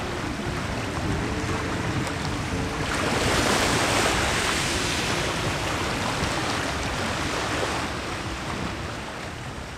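Small sea waves breaking and washing onto the shore. They swell louder about three seconds in and fade away over the last couple of seconds.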